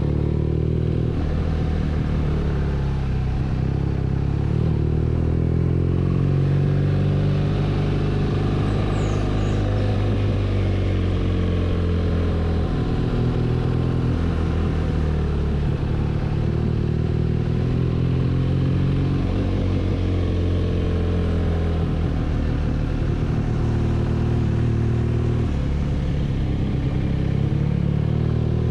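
BMW R nineT's air/oil-cooled boxer twin engine running under way, its pitch falling and rising again and again as the throttle and engine speed change.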